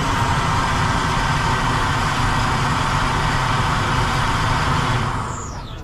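The Wawel Dragon statue's gas fire jet blasting flame: a loud, steady rushing roar that fades out with a falling hiss about five seconds in.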